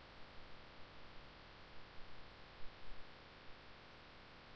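Faint steady background hiss and hum from a desktop recording microphone, with a few soft brief ticks.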